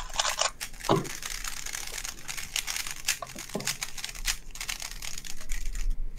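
Rapid, irregular clicking and clacking of a speed cube's plastic layers being turned quickly by hand, with a short low knock about a second in.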